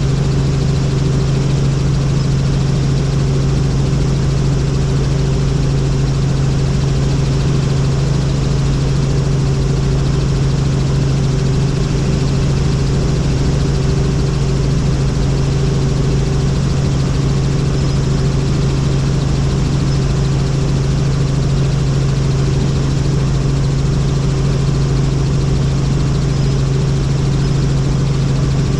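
Helicopter in flight, heard from inside: a steady, loud drone of the rotors and turbine with a strong low hum that holds one pitch throughout.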